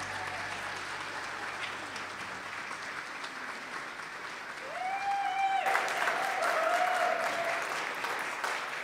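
A congregation applauding, swelling about five seconds in, with a voice calling out briefly over the clapping.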